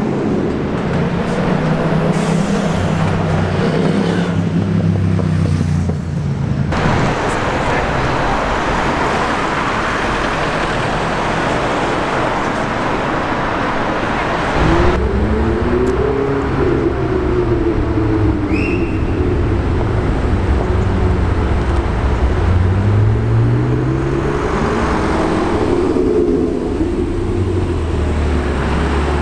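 Pagani Huayra Roadster's twin-turbo V12 running at idle, then revved up and down several times, with a longer rising rev a little past two-thirds of the way through, over street traffic noise.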